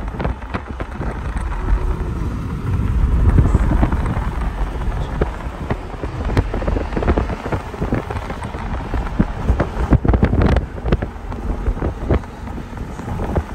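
Wind buffeting the microphone from a moving car, with a strong low rumble of wind and road noise and many sharp crackles.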